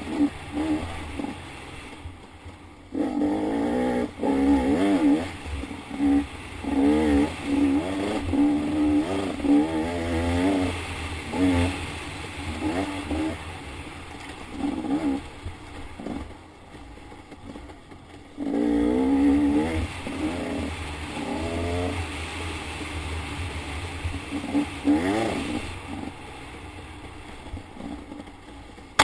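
Dirt bike engine under hard riding, revving up in repeated surges of throttle and dropping back as the rider shifts and eases off, with short lulls off the throttle now and then. Heard from the rider's helmet, with a steady low rumble beneath.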